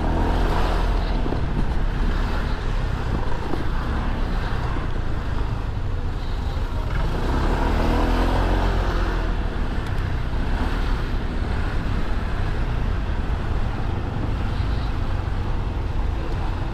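Riding a Honda SH150i scooter in city traffic: steady wind rumble on the microphone over the scooter's engine and the surrounding cars and motorcycles, swelling louder around eight seconds in.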